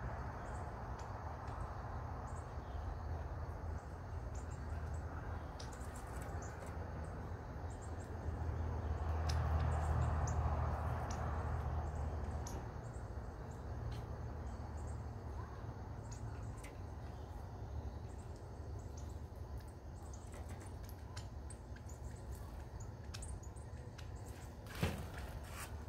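Outdoor ambience: a steady low rumble that swells for a few seconds around the middle, with short, high bird chirps scattered throughout and one sharp knock near the end.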